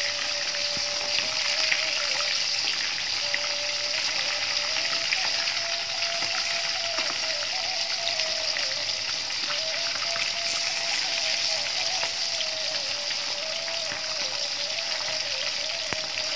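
Tuna pieces deep-frying in a wok of hot oil over medium heat: a steady sizzle with fine crackles. A simple background melody plays underneath.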